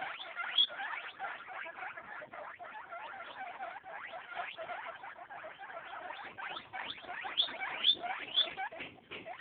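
Eight-day-old guinea pig pups squeaking: a rapid, continual series of short rising squeaks, several a second. One louder squeak comes in the first second and three more near the end.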